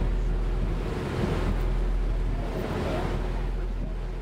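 Steady low drone of a tour boat's engine under wind buffeting the microphone and water washing past the hull.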